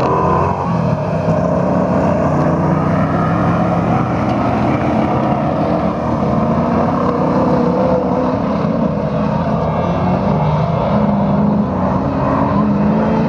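Autocross buggy engines running hard as several cars race on a dirt track: a loud, continuous mix of engine notes, each rising and falling as the drivers rev and lift.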